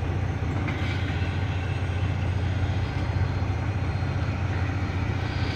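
Semi truck's diesel engine running at a steady low idle, a constant low hum heard from inside the cab.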